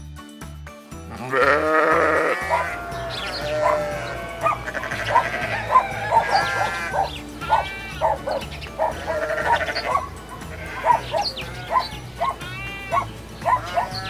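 Many overlapping bleats from a flock of farm animals, beginning about a second in, over background music with a steady beat.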